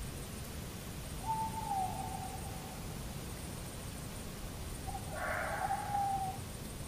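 Owl hooting twice: two drawn-out calls of about a second each, sagging slightly in pitch, the second starting rougher. Underneath is a faint steady hiss.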